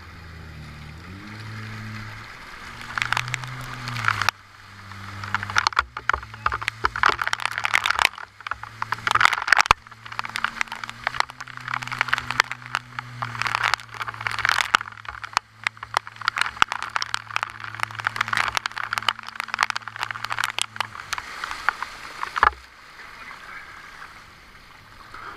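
Jet ski engine running steadily while towing, its pitch stepping up and down a few times, under loud rushing and splashing of churned river water against the craft. Engine and rush stop near the end, leaving a quieter wash of water.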